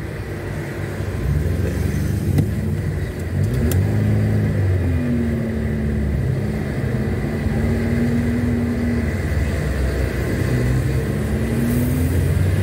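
Volkswagen Voyage's engine heard from inside the cabin while driving in traffic, its pitch rising and falling several times as the car speeds up and eases off.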